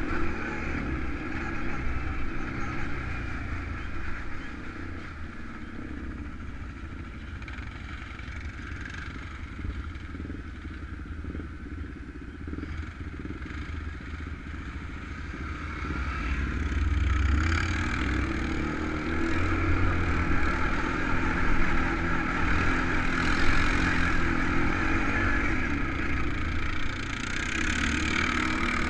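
Off-road engines of an ATV and three-wheelers running on the move: a continuous engine rumble that dips for a while, then builds and gets louder a little past halfway.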